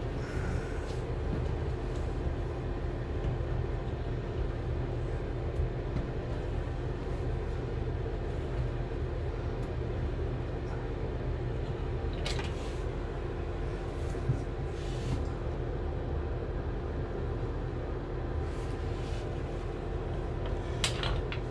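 A steady low mechanical hum with a constant tone. A few short clinks, like metal tools being handled, come in over it after about twelve seconds.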